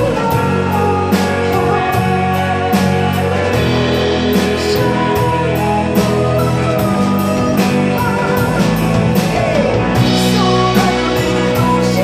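Live rock band playing: electric guitars, bass and drum kit with a male lead vocal, loud and even, over a steady cymbal beat.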